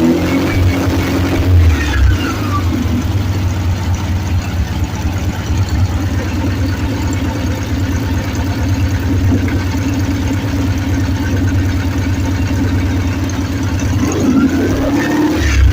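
Volkswagen engine running on LPG, holding a steady speed through most of the stretch. The pitch falls over the first two seconds as the revs drop, and rises again near the end as the engine is revved up.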